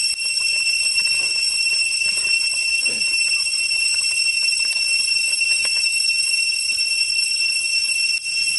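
Steady high-pitched insect chorus in the forest, a shrill ringing drone of several pitches that does not let up. A few faint knocks of a wooden spatula in the pot sound over it.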